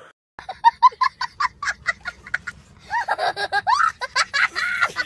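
A child laughing: a quick run of short giggles, then, about three seconds in, longer laughs that rise and fall in pitch.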